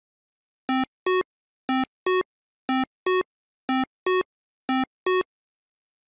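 Synthesized electronic beeps: five pairs of short two-note blips, a lower note then a higher one, about one pair a second.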